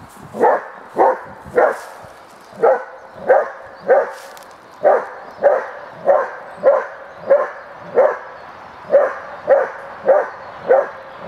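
Dog barking in a steady, regular series, roughly two barks a second, with a few short pauses.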